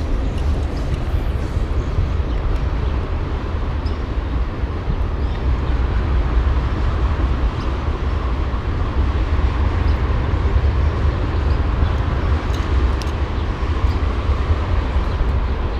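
Steady rush of flowing river water, with wind rumbling on the microphone underneath.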